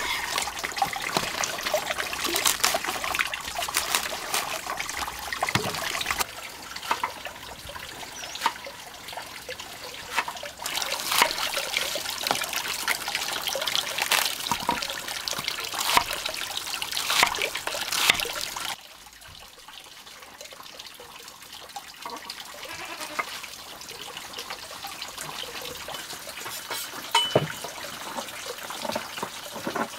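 Kitchen knife cutting through a raw cabbage on a wooden cutting board: crisp crunching slices and repeated knocks of the blade on the board. About two-thirds of the way through the chopping stops and a much quieter background follows, with only a few faint knocks.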